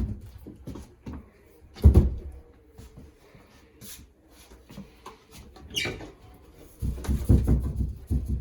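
Knocks and thumps from a vanity cabinet with a stone countertop being pushed and rocked. A loud knock comes twice early on, and a quick run of low rattling thumps follows near the end. The rattle is the sign of a cabinet that is loose and not screwed in firmly.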